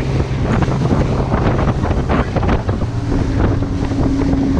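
Outboard-powered center-console boat running at speed through chop: a 200 hp Evinrude E-TEC outboard hums steadily under heavy wind buffeting on the microphone and water splashing against the hull. About three seconds in, the engine note shifts higher.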